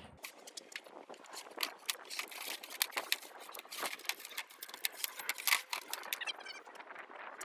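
Hand work on a window screen frame: a dense run of small clicks, taps and scrapes.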